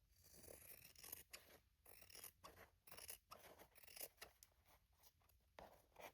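Fabric scissors snipping through cloth in a quick, uneven series of faint cuts, trimming overhanging scraps from the edge.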